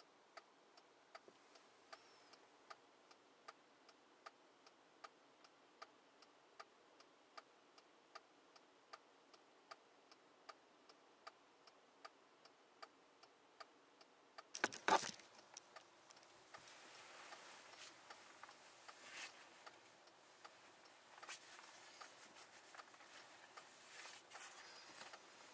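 Steady, faint mechanical ticking, about two to three ticks a second. About halfway through, a short sharp clatter, the loudest sound, is followed by soft rustling while the ticking carries on.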